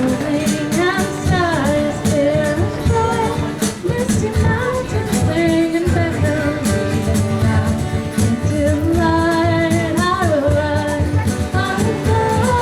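Live music: a singer's voice with gliding, wavering notes over a guitar-led band accompaniment.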